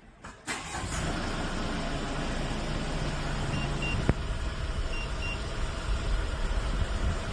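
A Hyundai Porter II's diesel engine starts by remote start about half a second in and then runs at a steady idle. Two pairs of short high beeps sound in the middle, with a single sharp click between them.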